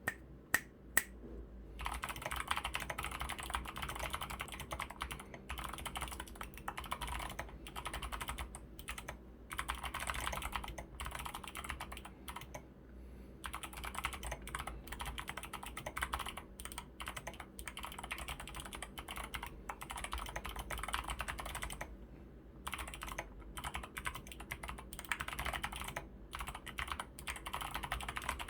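Typing on a mechanical keyboard with lubed clicky Kailh Box Pink switches, lubed stabilizers and SA keycaps: a few single keystrokes, then fast continuous runs of key clicks broken by short pauses.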